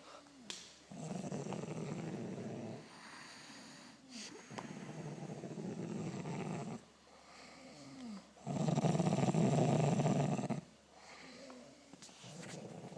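A sleeping adult snoring deeply: three long snores of about two seconds each, coming about every three and a half seconds, the third the loudest, with a fourth beginning near the end.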